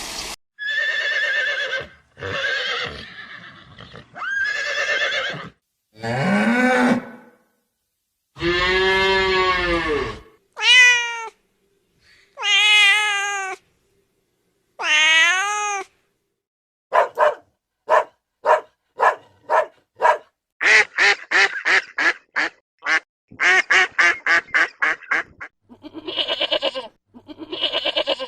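Calls of farm and domestic animals played one after another. First come several separate drawn-out calls, then a few that rise and fall in pitch. After that comes a long stretch of short calls in quick succession, and a few more calls near the end.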